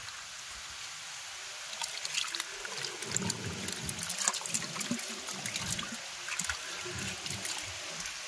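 Shallow water in a plastic crate splashing and trickling as hands scoop up and drop a mass of small fish fingerlings. The splashes come thickest from about two seconds in.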